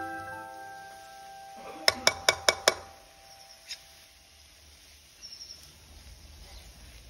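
Background music fades out; then a metal ladle clinks sharply against an iron kadhai five times in quick succession, with one softer knock about a second later.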